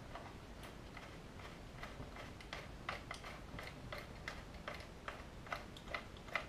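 Small screwdriver turning a body-fixing screw into a model locomotive's chassis: faint, irregular clicks, about two or three a second.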